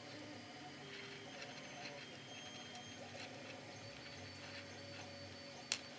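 Faint steady machine whir with short tones that shift in pitch, under light ticks and rustles of a thin ribbon being handled and knotted; a single sharp click near the end.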